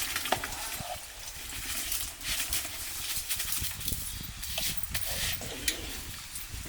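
Rice being added to a pot of boiling water over the fire and stirred: a steady hiss with scattered clicks and knocks.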